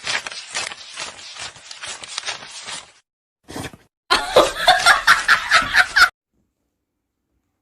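A person laughing: about three seconds of rapid, breathy snickering, then after a short pause a loud burst of rhythmic laughter that cuts off suddenly about six seconds in.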